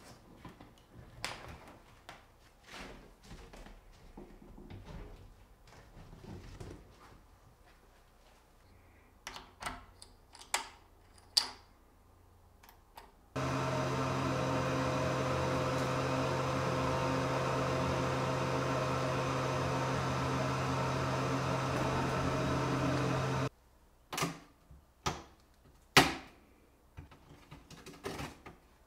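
Light clicks and knocks from handling a diode laser engraver's fabric enclosure and bed. About a third of the way in, a small electric motor in the engraver setup starts with a steady hum, runs for about ten seconds and cuts off suddenly. A few sharp knocks follow.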